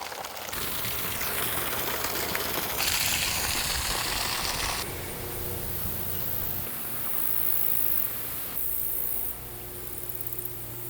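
Water rushing out of an IBC tote's drain into a pond, a steady hissing rush whose tone shifts abruptly several times, with a low steady hum underneath.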